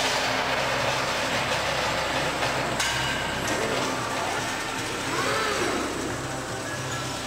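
Industrial palletizing robot arm at work: a steady machine hum, with the servo motors giving rising-then-falling whines as the arm swings, and a sharp click about three seconds in.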